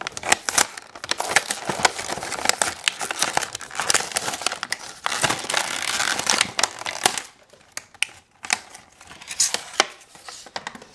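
Clear plastic blister packaging crackling and crinkling as it is pulled off a toy's cardboard backing. The crackles are dense for about seven seconds, then thin out to a few scattered clicks.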